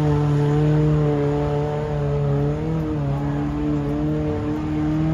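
Off-road buggy engine running at a steady, even pitch, dipping and wavering briefly about halfway through as the vehicle crawls up a rocky trail.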